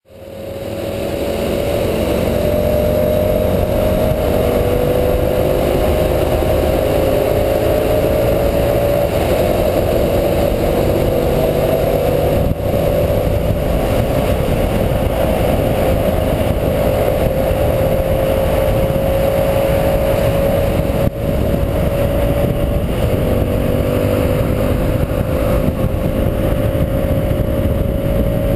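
Hyosung GT125's 125cc V-twin engine running at highway cruising speed, its pitch creeping slowly upward as the bike gains speed, under heavy wind rush on a helmet-mounted camera's microphone.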